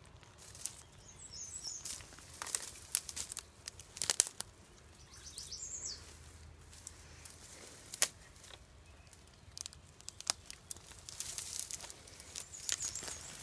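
Footsteps forcing a way through dry undergrowth: dead leaves and stems crackle and brush against the body, with several sharp twig snaps, the loudest about 3, 4 and 8 seconds in.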